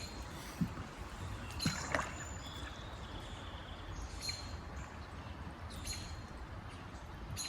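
Fast-moving high river water sounding around a kayak, with wind rumble on the microphone and a few light knocks near the start.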